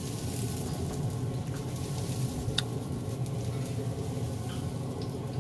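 Weber SmokeFire pellet grill running: a steady fan hum with an even airy hiss, and a few faint clicks.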